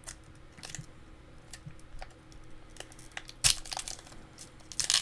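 Foil wrapper of a Pokémon booster pack crinkling and tearing as fingers pick and pull at its sealed top edge, in scattered small crackles with a louder crackle about three and a half seconds in and again near the end. The pack is not opening cleanly.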